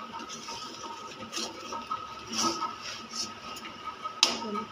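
Steel spoon scraping against a steel kadai as cooked rice pulao is gently turned over, in a few short strokes, with a sharper knock near the end.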